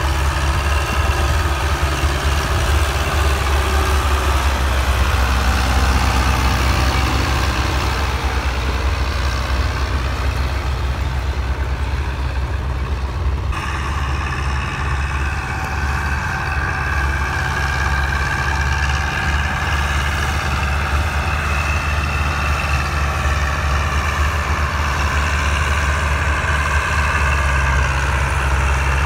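Zetor 7711 tractor's four-cylinder diesel engine running steadily under load while pulling a seed drill. The tone of the sound shifts abruptly about halfway through.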